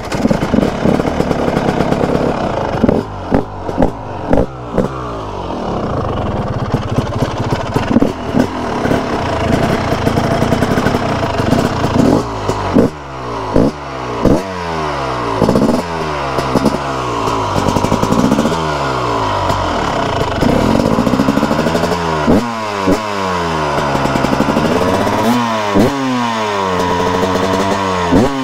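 TM Racing SMR 300 ES (2021) carbureted two-stroke single with its stock HGS exhaust, revved repeatedly while standing. The revs rise and fall sharply off idle, first in short quick blips, then in longer, even sweeps up and back down.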